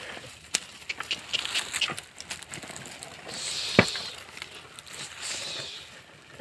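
Oxen pulling a wooden plough through dry, stony soil: scattered crunches and knocks of hooves, footsteps and the plough, with a longer scraping hiss a little past three seconds in and again around five seconds, and one sharp knock just before four seconds in.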